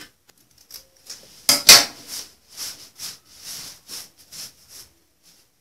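Scissors set down with a sharp double clatter about one and a half seconds in, the loudest sound, followed by a run of soft swishes of cotton fabric rubbing and rustling as it is lifted and shaken.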